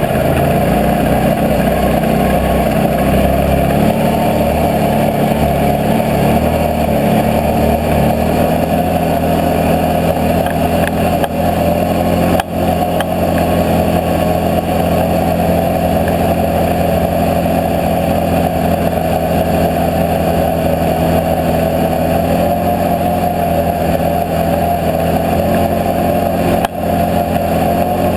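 Can-Am Outlander 650 XMR ATV's V-twin engine running under way on a snowy trail. The engine note shifts through the first several seconds, then holds steadier, with two brief dips in level.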